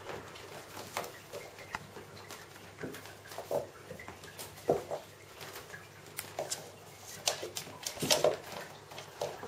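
A Bengal kitten's paws and claws pattering and scratching on a carpeted cat tree with sisal posts, in irregular light taps, with a few louder soft thumps as it lands and scrambles.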